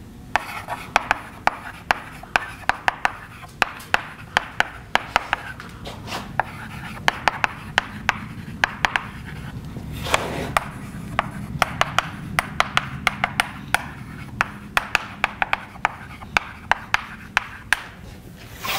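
Chalk writing on a blackboard: a quick run of sharp taps and short scrapes, several a second, as each stroke of the letters is made.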